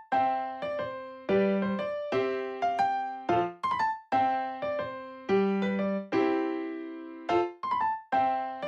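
Background music: a gentle piano tune of plucked-sounding notes, each struck and fading, in a steady repeating phrase.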